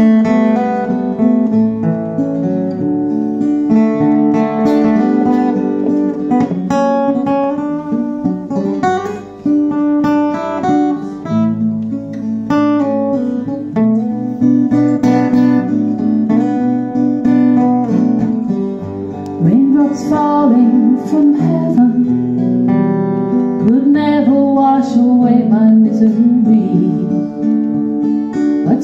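Two acoustic guitars, strummed and picked, playing the instrumental break of a slow ballad.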